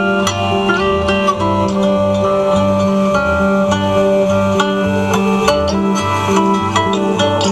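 Instrumental music led by plucked guitar over a steady, repeating bass line.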